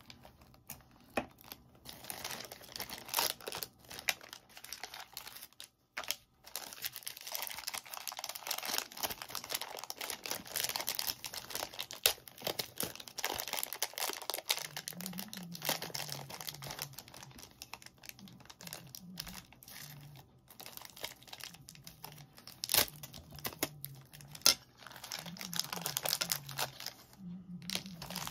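Thin clear plastic bags crinkling and rustling in the hands as small figure pieces are unwrapped, with a few sharp clicks along the way.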